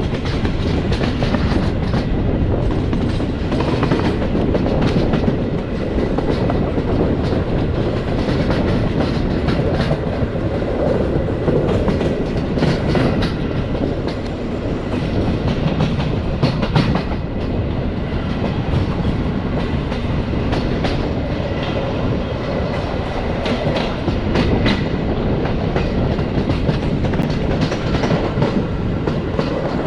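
Passenger train carriage running along the track, heard from its window: a steady rumble with the wheels knocking and clacking over rail joints.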